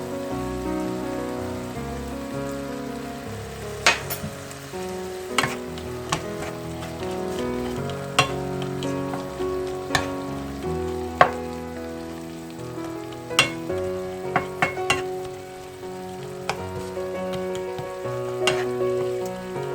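Food sizzling as it is stir-fried in a frying pan, with a spatula clinking sharply against the pan about a dozen times.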